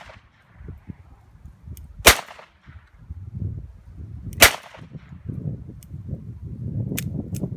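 Two gunshots, about two and a half seconds apart.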